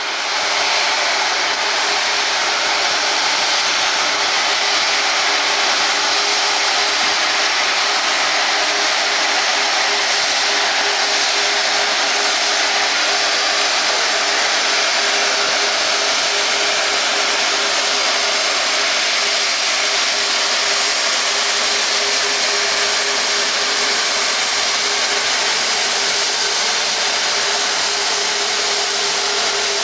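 Airbus A340-600's four Rolls-Royce Trent 500 turbofans at taxi idle: a steady jet rush and whine with one held hum underneath.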